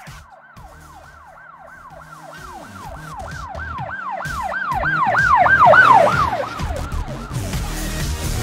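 Siren sounding in quick, repeated falling sweeps, about three a second. It grows louder to a peak about six seconds in, then fades away.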